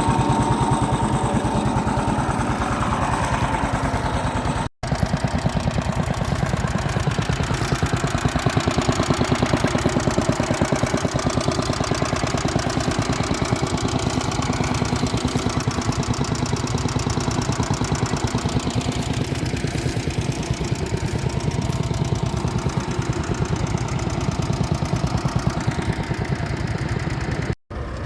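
Vintage tractor engine running steadily at idle, an even beat of firing pulses, with two momentary breaks in the sound about five seconds in and near the end.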